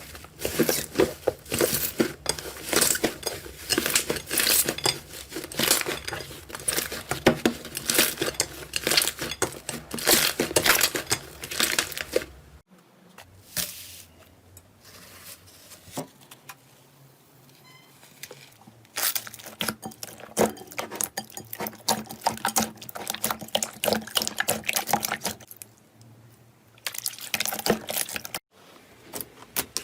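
Slime being squeezed and worked by hand: dense, rapid wet clicks, pops and crackles. It turns suddenly quieter about a third of the way through, with only scattered pops for several seconds, then the dense crackling returns.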